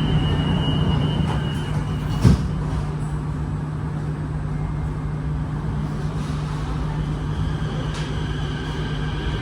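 Inside a Kawasaki-CRRC Sifang T251 metro car: a steady door-closing warning tone stops about two seconds in, and the doors shut with one sharp knock. The car's steady hum carries on as the train pulls away, with higher whining tones coming in near the end.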